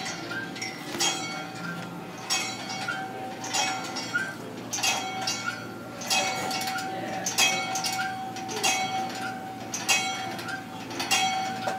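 A metal bell rung over and over, struck about once every second and a quarter, each stroke ringing on into the next.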